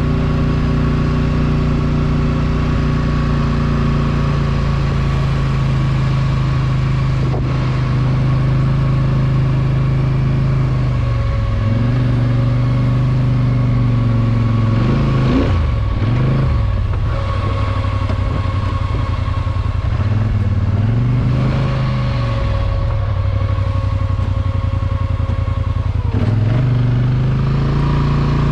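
ATV engine running under way, its pitch dropping about a third of the way in, with quick revs twice in the middle, then picking back up near the end.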